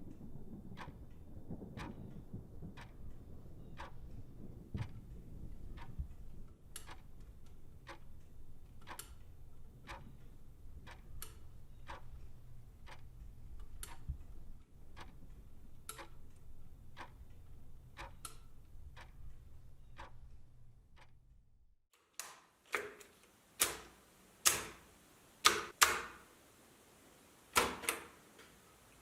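Regular mechanical ticking, about one and a half ticks a second, over a low steady hum; both stop abruptly about 22 seconds in. A handful of louder, sharper clicks and clacks then follow at irregular spacing.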